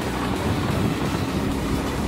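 Motor vehicle riding along a road: a steady engine and road noise.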